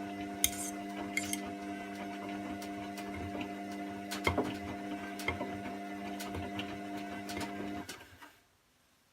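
Washing machine running with a steady motor hum and irregular sharp clicks and ticks. The hum stops about eight seconds in.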